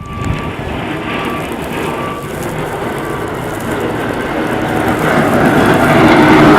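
Steady mechanical engine noise that grows louder toward the end, with a few short high beeps in the first couple of seconds.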